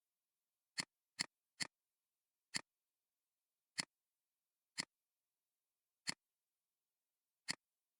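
Computer mouse clicking: eight short, sharp clicks at uneven intervals, three in quick succession about a second in, the rest a second or so apart.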